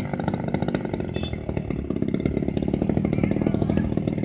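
The 55cc gasoline engine of a Kitty Maiden radio-controlled model plane running steadily on the ground, a rapid even pulsing like a chainsaw.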